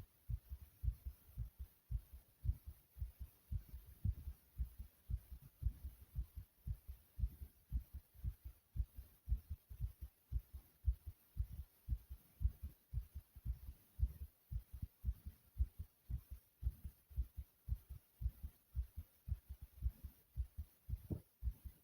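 A human heartbeat recorded from inside the chest: low, regular thumps in close pairs, pounding.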